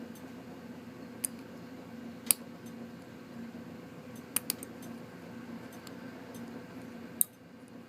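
Small metal clicks as a snap ring is worked back into the push-button lock of a 1st-gen Chevy G10 van door handle: a handful of sharp clicks, loudest about two seconds in and again near the end, over a steady low hum.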